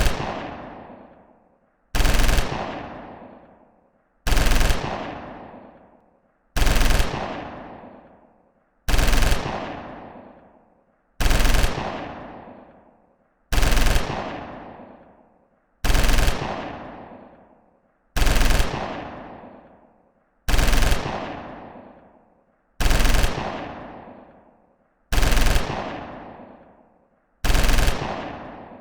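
Machine gun sound effect: short bursts of automatic fire, the same burst repeated about every two and a quarter seconds, each dying away in a long echo.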